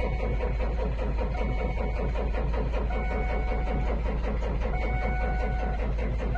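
Ford F-650 Super Duty's diesel engine turning with an even, rapid beat, heard from inside the cab.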